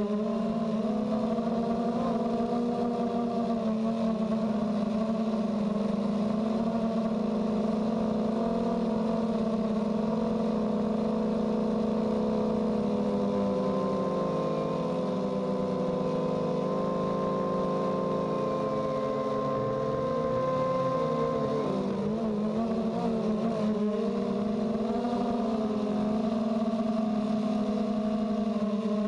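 Blade 200QX quadcopter's four brushless motors and propellers buzzing steadily in flight, heard from the camera mounted on the craft. The pitch of the buzz wavers and shifts for several seconds past the middle, then settles again.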